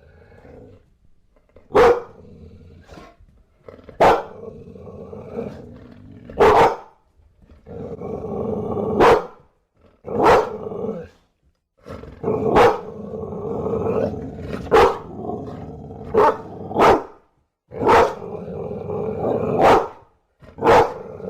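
Bulldog barking: about a dozen single loud barks, one every second or two, with a continuous lower sound between many of them.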